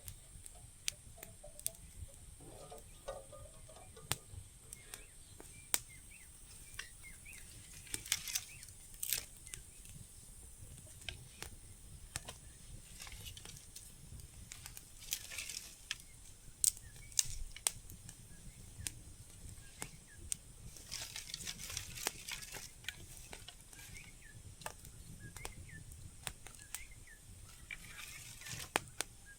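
Scattered light clicks and crackles with a few brief rustling swishes, as of leaves and sticks being handled, over a faint steady high-pitched insect drone.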